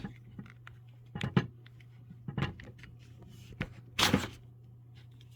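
Battery pack of a Hyper Tough 12 V cordless reciprocating saw being handled, pulled out and pushed back in: a few hard plastic clicks and knocks, then a longer sliding scrape about four seconds in, over a low steady hum.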